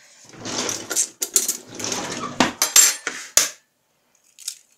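Kitchenware being handled on a counter: a run of clatter and sharp clinks as dishes and a steel plate are moved, then a short crack near the end as an egg is broken on the rim of a bowl.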